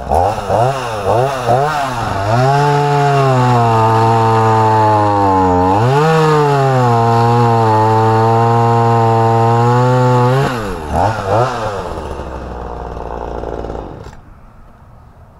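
Ryobi 38cc two-stroke gas chainsaw, revved a few times and then held at high revs while cutting through a fallen tree branch for about eight seconds, with a brief dip in revs midway. It is revved twice more, drops to a low idle, and stops about fourteen seconds in.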